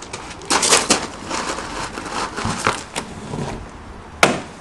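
A person climbing in through a window over the sill: clothes rustling and scraping against the frame and sill, with several knocks. The loudest knocks come about half a second in, and there is one sharp knock near the end.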